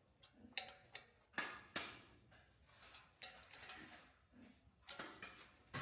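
A few irregular sharp clicks and knocks, three louder ones in the first two seconds and fainter ones later.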